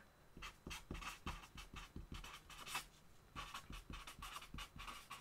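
Felt-tip marker scratching faintly across paper in many quick short strokes as letters are written, with a brief pause about three seconds in.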